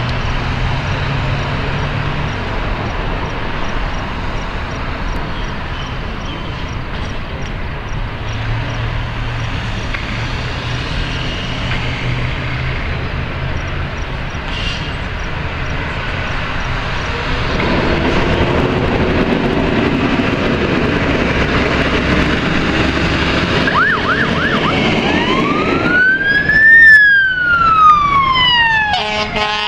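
Street traffic, then an E-One pumper fire engine's diesel revving up as it pulls out. Near the end its siren gives a few short chirps and then wails up and down, with a blast of the air horn at the very end.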